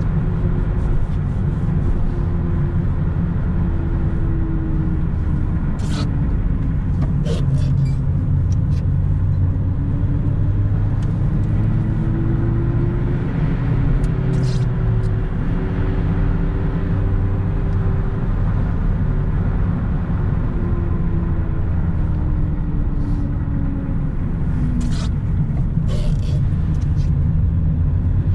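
Mitsubishi Lancer 1.6 (4G18 four-cylinder) car being driven: a steady low rumble of engine and road, with the engine note rising and falling several times as the revs change. A few short sharp clicks or knocks come through now and then.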